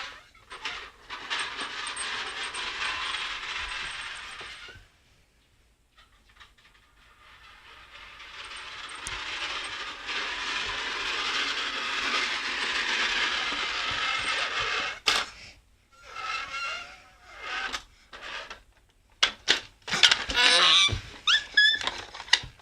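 Motorised toy train rattling along its track. It runs for about four seconds, stops, then runs again for about six seconds. Clicks and knocks follow, with a few short vocal sounds near the end.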